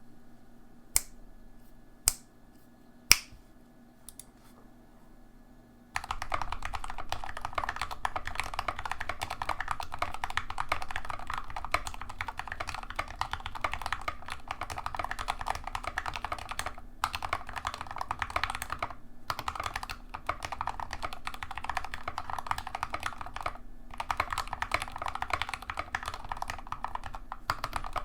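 Cu65 custom mechanical keyboard with Gateron Yellow linear switches lubed with Krytox 205g0 and PBT keycaps being typed on: three single keystrokes about a second apart, then from about six seconds in, fast continuous typing with a few brief pauses.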